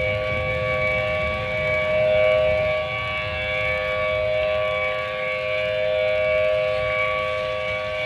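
Civil defense siren sounding a steady alert: several held tones at once, with no rise or fall in pitch, over a low rumble. The loudness swells gently about every four seconds.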